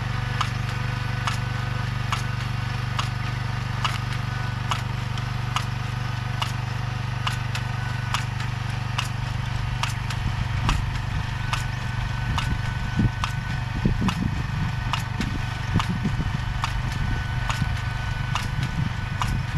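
Engine of a vegetable transplanting machine running steadily, with repeated sharp clicks from the machine throughout.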